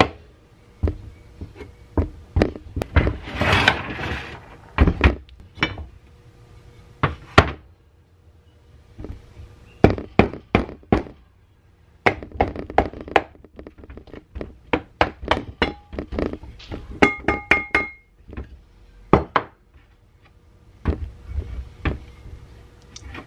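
Mallet blows on the housing of a 1920s General Electric 1/20 hp induction motor, knocking the end bell and stator frame apart: irregular thunks in clusters with short pauses. A few blows leave a brief metallic ring.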